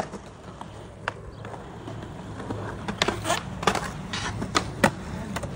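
Skateboard wheels rolling on pavement, the rumble building, with a series of sharp clacks of the board in the second half as a trick is popped and landed.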